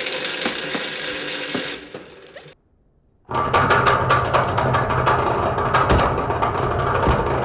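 Angle grinder spinning a joke attachment, in two runs: the first fades out about two and a half seconds in, then after a short silent break a second run starts with a steady low hum and rapid ticking.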